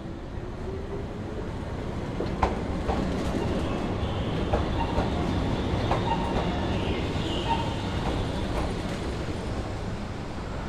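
Keihan Keishin Line 800 series train running on the rails, its wheels clacking sharply over rail joints every second or so. Thin wheel squeal rings faintly through the middle, and the sound swells and then eases off toward the end.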